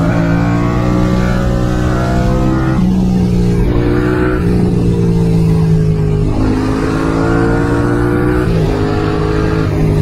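Yamaha MT-07's parallel-twin engine through a full Mivv exhaust system, riding under load, its pitch stepping up and down several times as revs rise and fall.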